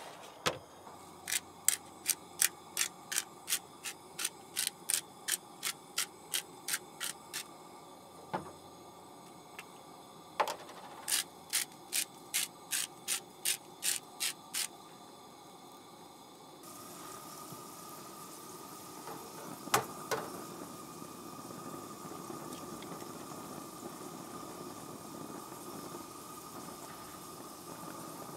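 Spice grinder clicking over a pan of potatoes frying on a propane camp stove, about three clicks a second in two runs. Later the frying gets louder and steadier as an egg fries in a second pan, with two sharp knocks about twenty seconds in.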